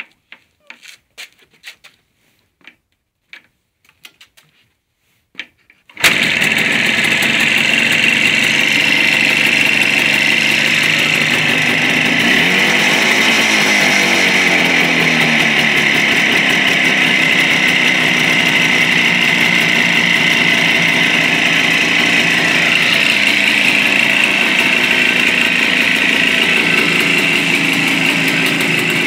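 Jawa 350 type 638's air-cooled two-stroke twin engine catches suddenly about six seconds in, after a few faint clicks, and settles into a steady idle. It is revved once, rising and falling, between about twelve and fifteen seconds in.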